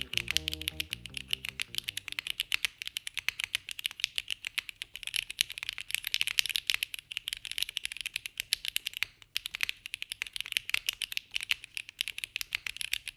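Fast typing on a Kei V2 mechanical keyboard fitted with Siliworks x HMX Sonja switches: a dense, uneven run of key clacks, many strokes a second. Background music fades out in the first second or two.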